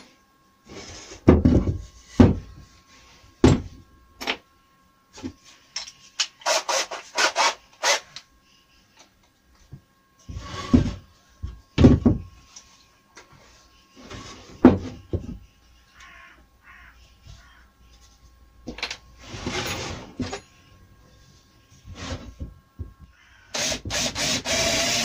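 Softwood timbers knocked, slid and set down on a workbench, with scattered irregular knocks and rubbing. Near the end a cordless drill starts up and runs steadily, boring a screw hole down into the timber.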